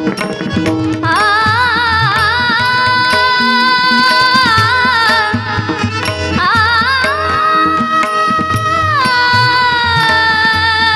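A woman singing a long wordless devotional bhajan phrase, holding notes for several seconds with wavering ornaments and gliding between pitches, after a few tabla strokes in the first second.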